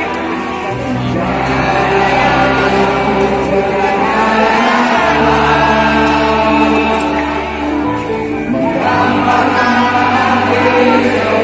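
Football supporters in a packed stadium singing their club anthem together, over music with held bass chords that change every few seconds.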